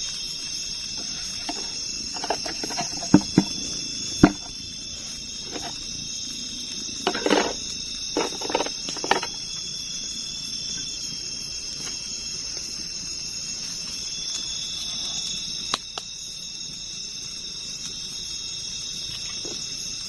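Steady, high-pitched chorus of night insects, with a few sharp knocks and short clattering scrapes of cooking utensils in the first half.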